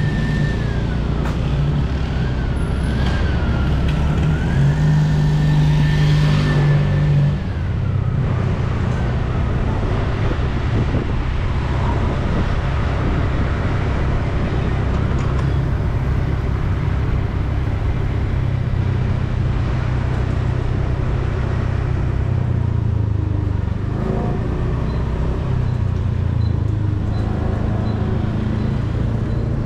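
City road traffic with a steady engine hum throughout. A high wavering tone, like a siren or horn, sounds over it for the first seven seconds or so.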